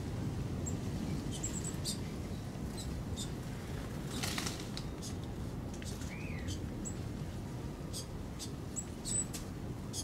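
Small birds feeding on the ground: scattered short high chirps and light ticks, with a brief flutter of wings about four seconds in, over a low steady rumble.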